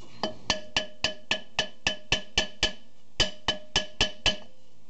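Hammer rapping a rust-seized cast-iron rear brake drum on a 1997 Chevy Astro van, about four quick ringing metallic taps a second to loosen the rust holding it to the hub. There is a run of about ten taps, a short pause about three seconds in, then about five more.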